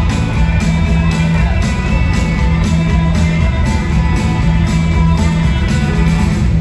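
Live rock band playing in a large arena, led by strummed guitar over a steady drum beat, heard from among the audience with the hall's echo.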